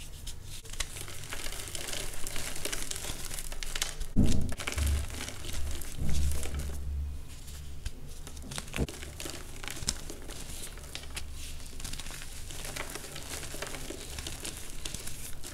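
Hands crushing a pressed block of blue-dyed powder mix: dense crunching and crackling as it breaks, with two louder crunches about four and six seconds in, then softer crumbling as the loose powder is squeezed between the fingers.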